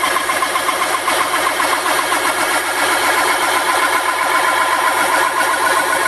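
Small metal lathe running steadily while a carbide single-point cutter is fed into a spinning thin steel paint-tin lid, cutting out a hole.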